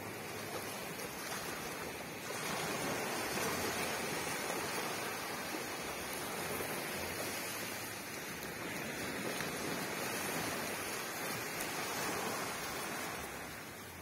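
Small ocean waves washing up and running back over a sandy beach, a steady rush that swells about two seconds in and eases a little near the end.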